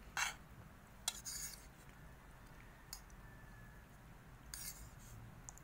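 A fork scraping and clinking against a plate as food is scooped up: about half a dozen brief, faint scrapes, the longest about a second in.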